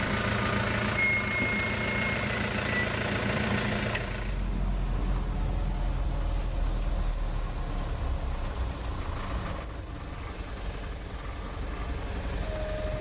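A truck engine running steadily. About four seconds in, the sound changes abruptly to a steadier low rumble, with faint high chirps over it later on.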